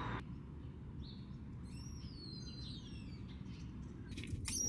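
Small birds chirping in short falling calls over a steady low street rumble, with a brief clatter near the end.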